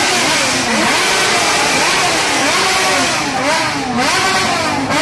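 Several motorcycle engines revving over one another, their pitches rising and falling again and again as the riders blip the throttles.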